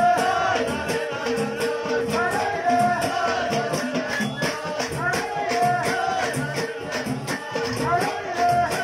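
A chorus of men singing together over a steady percussive beat, in traditional Amazigh festival music.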